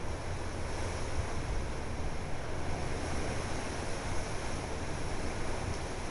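Hurricane wind rushing through palm fronds and trees and buffeting the microphone: a steady rush with a heavy low rumble. The storm's west side is arriving just after the eye, with the wind picking up.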